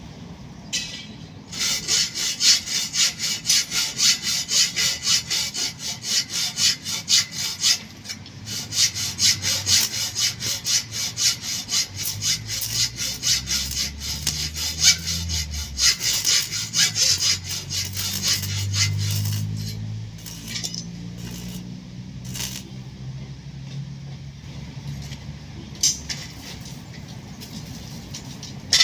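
Hand saw cutting wood, with quick back-and-forth strokes about three a second that thin out to a few scattered strokes after about twenty seconds. A low rumble comes and goes in the middle.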